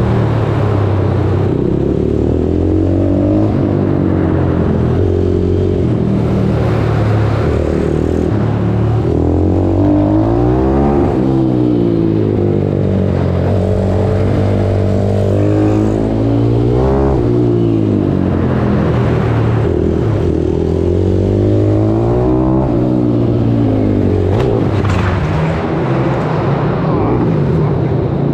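YCF SM F160 pit bike's single-cylinder four-stroke engine, heard up close, revving hard and dropping back over and over, its pitch climbing for a few seconds and falling as the rider accelerates and backs off.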